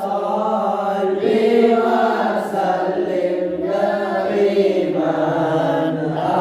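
Boys' voices chanting sholawat, Arabic devotional praise of the Prophet, in a slow melody of long held notes that glide from one pitch to the next.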